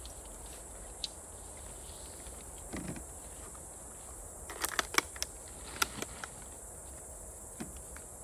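Hand food preparation at a camp table: a soft knock, then a quick cluster of sharp clicks and taps from a knife and food packaging being handled, about four and a half to six seconds in, over a steady high hiss.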